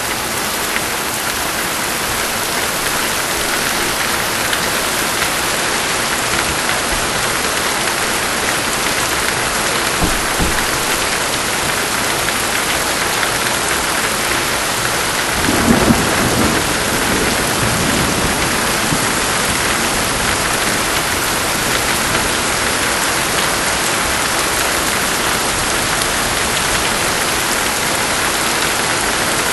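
Steady rain falling, with thunder: a short low thud about ten seconds in and a louder rumble of thunder a little past halfway, lasting a second or two.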